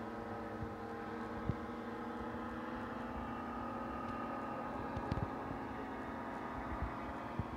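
A steady machine-like hum holding several fixed pitches, with wind rumbling on the microphone and a couple of soft knocks about five seconds in.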